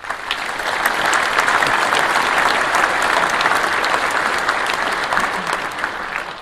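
A crowd applauding steadily, a dense patter of many hands clapping that starts abruptly and cuts off suddenly near the end.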